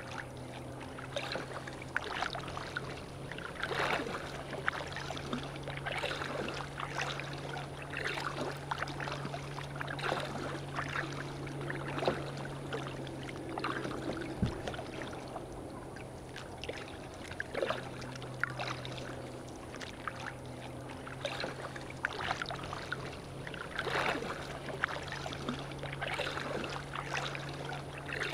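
Kayak paddle strokes splashing, about one every two seconds, with water lapping at the hull over a steady low hum.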